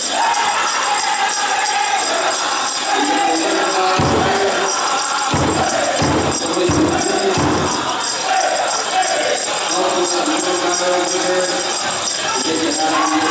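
A powwow drum group singing a chicken dance song over a big shared drum, with the dancers' bells jingling steadily. A run of loud drum beats, roughly two a second, comes about four to seven seconds in.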